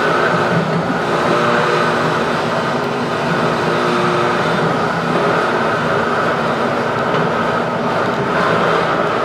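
Düker Rex AW 98 mixing grinder running empty, its electric drive turning the mixing arm and feed screw in the stainless hopper: a steady, loud mechanical running noise.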